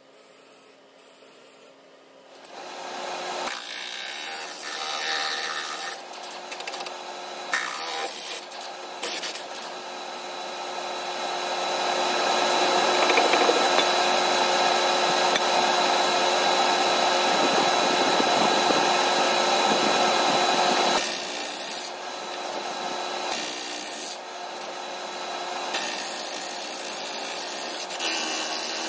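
Hand-held air tool on a compressed-air hose working packed dirt off the steel underside of a CAT 637 scraper bowl: a rough scraping noise with a faint steady whine. It starts about two seconds in, comes in short runs at first, runs loudest and most steadily through the middle, then carries on softer near the end.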